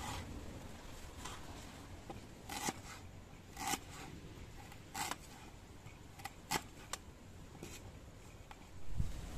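A few short rustles and clicks of objects being handled, about half a dozen spread over several seconds, over a low steady background rumble, with a dull thump near the end.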